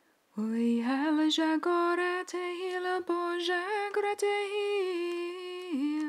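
A woman singing unaccompanied in tongues: a slow, wordless-sounding melody of long held notes. Her voice starts about half a second in, sliding up into its first note, and dips briefly near the end.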